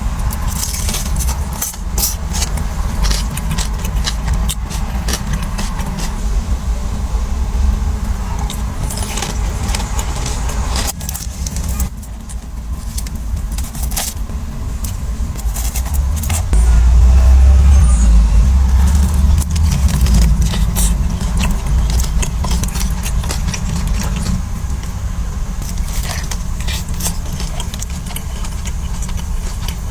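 Eating crispy fried chicken wings: crunching and chewing, with many sharp crackles and clicks, over a steady low rumble that swells a little past the middle.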